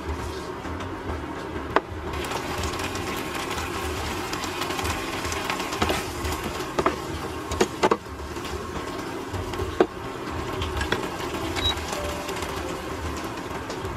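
Sardine and tomato sauce bubbling steadily as it simmers in a nonstick frying pan, with a few sharp clicks of a plastic slotted spoon knocking against the pan while it is stirred.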